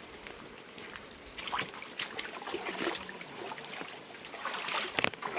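Water splashing and trickling, with scattered irregular knocks and a sharp knock near the end.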